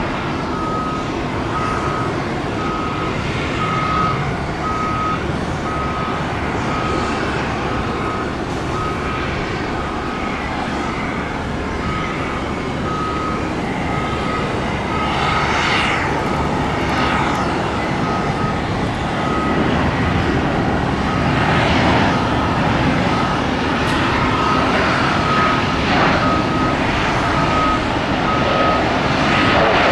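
Jet engines of an American Airlines Airbus A320-family airliner landing and rolling out on the runway: a steady rushing roar that grows a little louder in the last third. A construction vehicle's backup beeper beeps steadily and evenly throughout.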